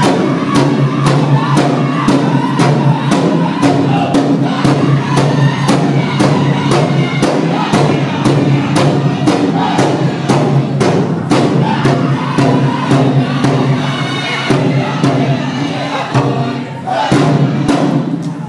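Powwow drum group singing in high, chanting voices over a steady drumbeat on a big drum, accompanying a women's fancy shawl dance, with crowd noise in the hall.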